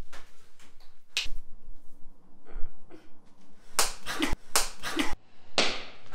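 A hand slapping a person's head: one sharp slap about a second in, then a quick run of several sharp smacks near the end.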